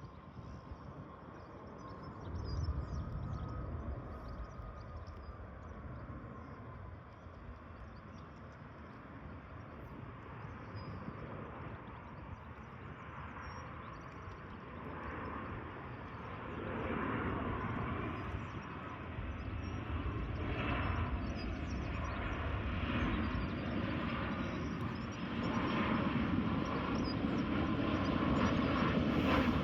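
Boeing 737-800's CFM56 turbofan engines on approach. A faint whine at first grows steadily louder through the second half as the jet draws near.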